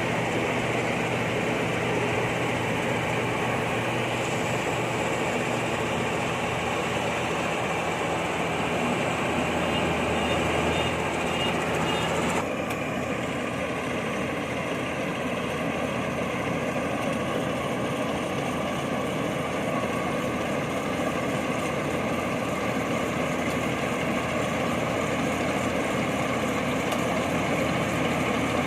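Rice combine harvester engine running steadily. The sound changes abruptly about twelve seconds in, then carries on steady.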